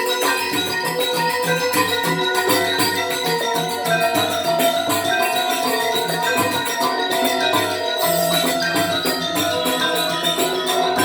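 Balinese gamelan playing Legong dance accompaniment: many quick ringing metallophone notes over a regular low beat.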